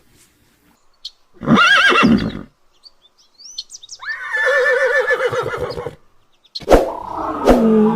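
Animal calls: a short wavering cry, then a longer trembling one, from an animal-sound compilation. Sharp clicks and a different loud sound begin near the end.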